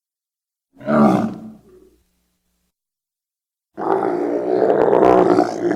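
Film sound effects for a hadrosaur (duck-billed dinosaur): a short bellowing call about a second in, then after a pause a long, loud, layered bellow that starts near four seconds and is still going at the end.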